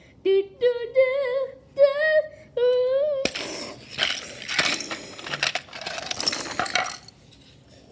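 A voice sings several short, wavering dramatic notes. About three seconds in, a sudden crash and a clatter of plastic Lego pieces follow as a toy boulder smashes a Lego boat, lasting about four seconds.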